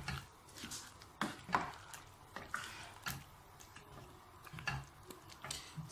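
A spoon stirring thick, wet yam porridge in a cooking pot: a string of short, irregular scrapes, knocks and squelches.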